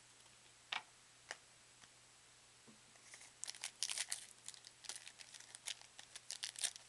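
Foil trading-card pack being crinkled and torn open by hand, a stubborn wrapper that resists opening. Two light taps about a second in, then dense crackling of the foil from about three seconds in.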